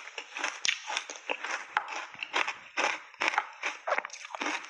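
Crunchy frozen matcha-tea ice being chewed, a rapid uneven run of crisp crunches about four a second.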